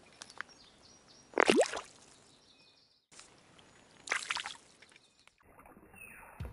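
Pond water splashing and sloshing as a stick is poked into the shallows, in two short bursts: about a second and a half in and again about four seconds in.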